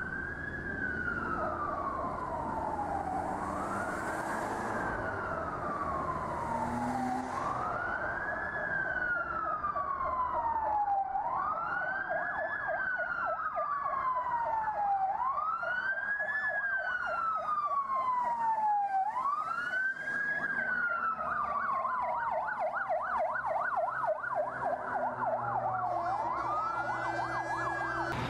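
Siren wailing, rising in pitch and falling back down about every four seconds. From about ten seconds in, a faster warbling siren joins it.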